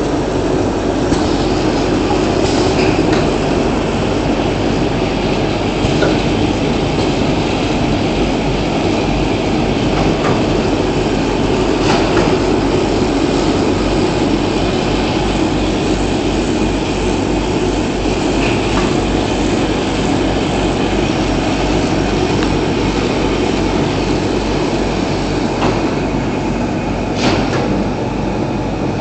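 Automatic scourer-making machine running, its circular knitting head knitting plastic filament into mesh tube: a steady mechanical clatter with scattered sharp clicks. A low, regular beat joins about eight seconds in.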